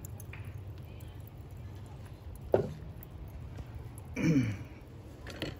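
Chef's knife slicing through smoked short ribs and knocking on a bamboo cutting board, with one sharp knock about two and a half seconds in, over a steady low hum. A man briefly clears his throat about four seconds in.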